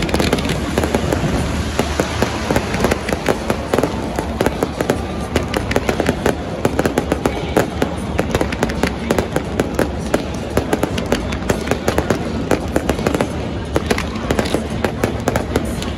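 Stadium fireworks display: a dense, unbroken string of bangs and crackles from aerial shells and ground fountains, several reports a second.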